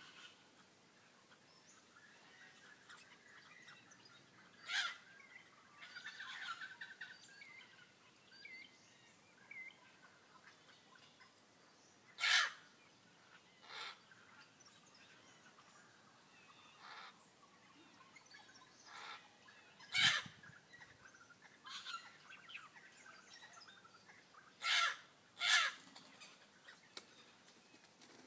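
Australian ringneck parrots calling: short, sharp calls every few seconds, two in quick succession near the end, with fainter chirping in between.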